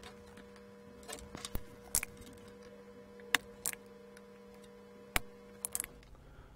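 A series of sharp clicks and snaps from a spring-loaded desoldering pump and a circuit board being handled while a component is desoldered, the loudest snap about three seconds in. A faint steady hum runs underneath and stops near the end.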